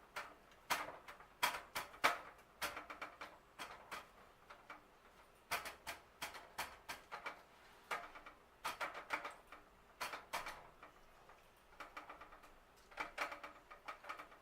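A metal utensil clicking and tapping against a metal baking pan in quick bursts with short pauses, each click ringing briefly.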